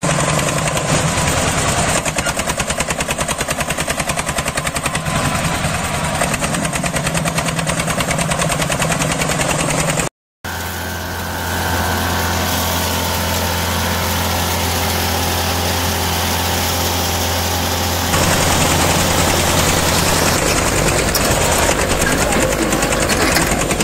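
Small engines of homemade miniature tractors running, first with a rapid, even chugging, then after a brief dropout a steadier hum.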